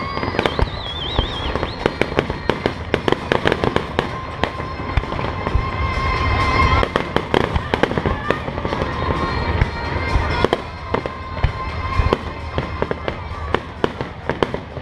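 Aerial fireworks display: many shells bursting in quick, irregular succession, a dense run of bangs and crackling with sharper reports standing out.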